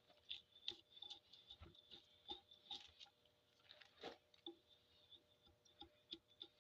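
Faint, irregular scraping and crunching strokes of a hand blade shaving bark off a cedar log.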